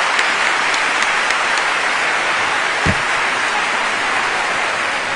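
A crowd applauding steadily, with one low thump about three seconds in.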